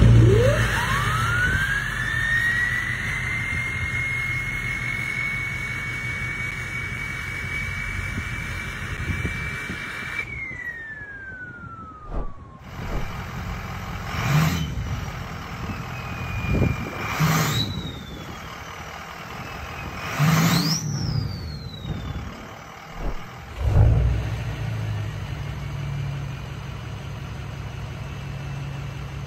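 Turbo whistle from Ford 6.0L Powerstroke diesel pickups with KC Jetfire turbochargers, three wheel types in turn. First a 9-blade turbine wheel: a loud whistle that shoots up in pitch, holds high and steady for about ten seconds, then falls away. Next a 10-blade wheel: two revs whose whistle climbs higher and drops back each time, then near the end an 11-blade truck idling with a fainter whistle starting to build.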